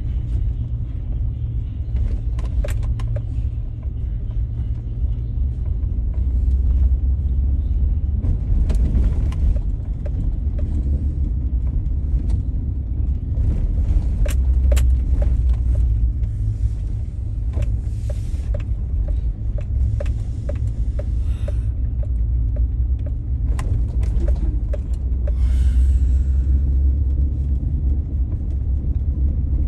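Car driving slowly, heard from inside the cabin: a steady low rumble of engine and tyres on the road, with a few light clicks and rattles scattered through it.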